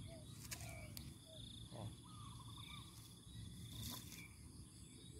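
Faint outdoor ambience: a steady high insect trill with short bird calls, and two faint clicks about half a second and about four seconds in.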